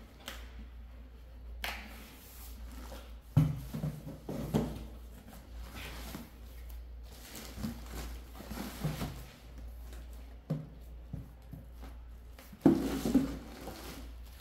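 Cardboard boxes and bubble wrap being handled: irregular rustling and light knocks as boxed sets are moved about in a cardboard shipping carton, with two sharper knocks, about three seconds in and near the end.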